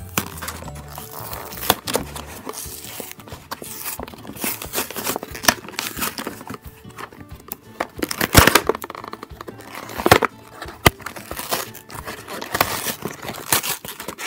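Cardboard backing and plastic blister of a toy package being torn, crinkled and pried apart by hand, in irregular rips and crackles with a few sharp, loud tears about two-thirds of the way through. Music plays underneath.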